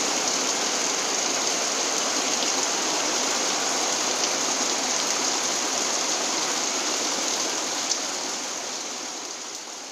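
Heavy rain pouring steadily, a dense even hiss, fading out over the last two seconds.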